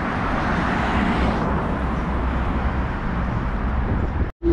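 Road traffic on a city street: a steady rumble of passing cars. It cuts out abruptly near the end.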